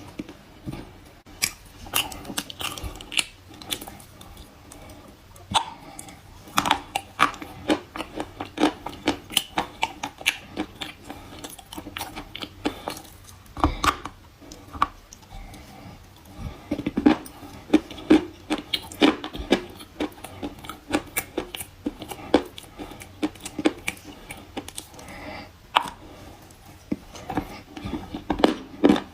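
A person biting and chewing dry edible kaolin clay chalk close to the microphone: a rapid, irregular run of crisp crunches.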